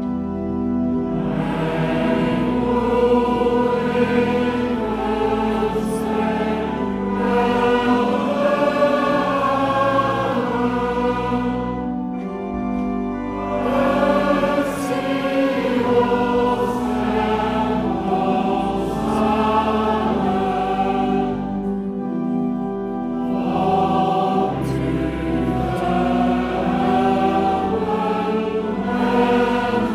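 A congregation singing a hymn together with church organ accompaniment, the organ holding steady chords under the voices. The singing breaks off briefly between lines twice.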